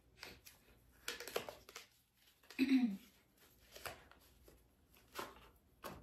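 Small jewellery boxes and plastic packaging being handled: several short rustles and clicks, with a sharp click near the end. A brief low vocal sound, falling in pitch, comes about halfway through and is the loudest thing.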